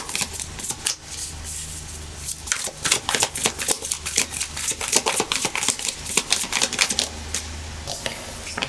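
A tarot deck being shuffled by hand: fast runs of crisp card flicks and slaps, with a short pause a little after a second in, thinning out near the end.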